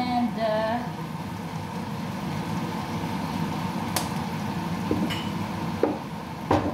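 Chicken stir-frying in a pan after soy sauce has gone in: a steady sizzle, with a few light clicks and knocks in the last few seconds.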